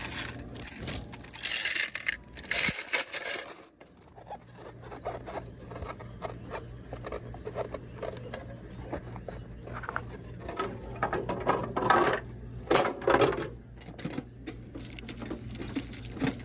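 Quarters clinking and rattling as coins are handled, with scattered clicks and scrapes and a steady low hum underneath.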